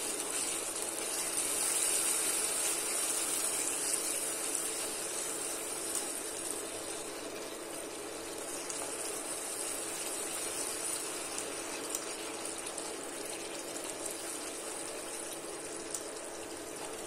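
Thick tomato curry gravy simmering and sizzling in a pan while a wooden spoon stirs it: a steady hiss with a few faint ticks.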